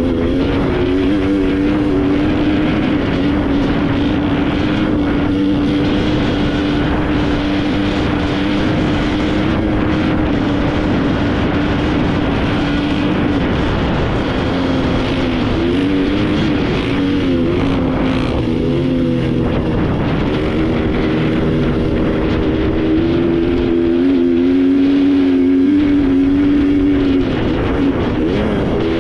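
An off-road vehicle's engine running under steady throttle, its note holding mostly even with some wavering in pitch through the middle and a brief drop near the end, over rough road and wind noise.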